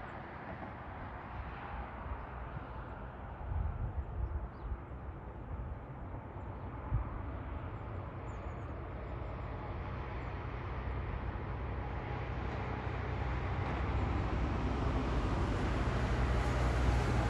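Jet airliner on approach, its engine noise a steady rush that grows gradually louder and brighter as the plane comes nearer.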